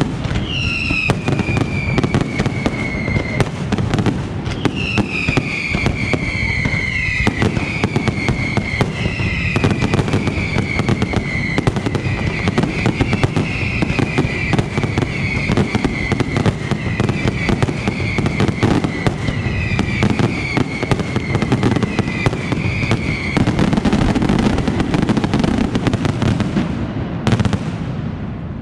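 Aerial fireworks display: dense crackling and banging throughout, with a run of whistling fireworks, each whistle starting high and falling in pitch, overlapping one after another until near the end.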